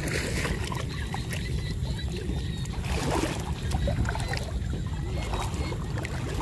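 Muddy water sloshing and splashing as a person wades waist-deep and feels under the surface by hand, with scattered small splashes over a steady low rumble.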